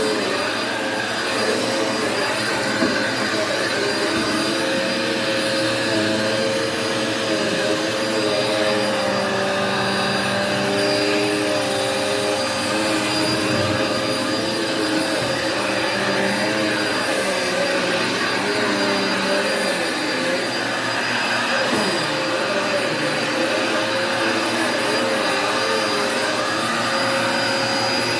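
Vacuum cleaner running steadily on carpet: a continuous motor hum with a steady high whine over it.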